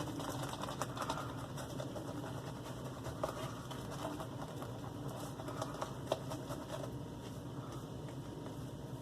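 Shaving brush whisked briskly around a lathering bowl, building shave-soap lather: a rapid, steady stream of wet ticking and squelching patter.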